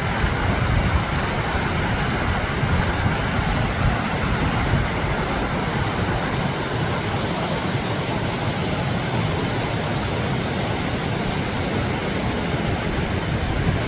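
Mountain creek swollen with spring snowmelt, rushing water running steadily and evenly, with no breaks.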